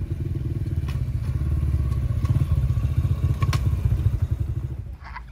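Small Honda kids' dirt bike's four-stroke single-cylinder engine running as it is ridden up at low speed: a fast, low putter that grows louder in the middle and falls away near the end as the bike stops.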